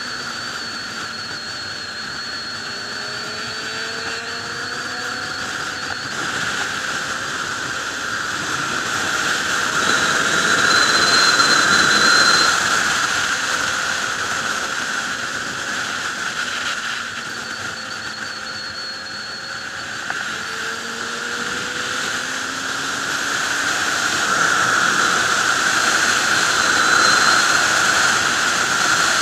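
Wind rushing past a sportbike rider at highway speed, swelling louder twice as speed builds. The motorcycle's engine note sits faintly underneath, rising in pitch several times.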